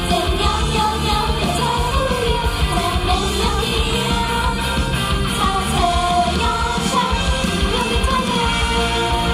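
Idol-pop song performed live: several women singing into microphones over a loud backing track with a steady beat and bass, heard through the stage PA.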